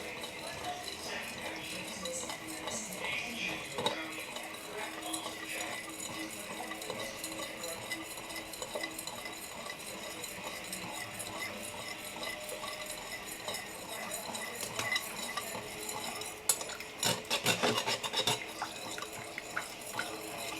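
Kitchen sounds: a utensil stirring in a pot or pan with small scattered clinks, then a quick run of clinks and knocks of metal on dishes about three-quarters of the way through.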